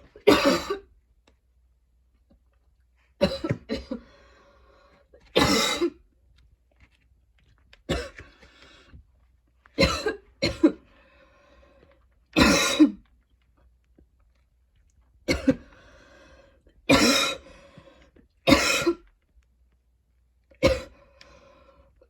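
A young woman's painful, choking coughing attack: about ten harsh coughs, one every two seconds or so, several followed by a thin, steady, whistling tail.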